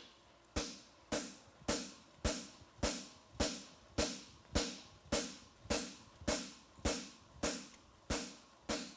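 A hammer strikes a handled fuller (creaser) held in a red-hot steel bar horseshoe on the anvil, driving the nail crease into the shoe. The blows are steady and even, a little under two a second, and each one rings briefly.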